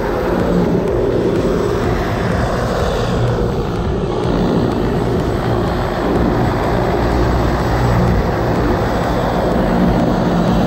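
Engine and propeller of a single-engine high-wing plane running steadily on the ground, a little louder near the end.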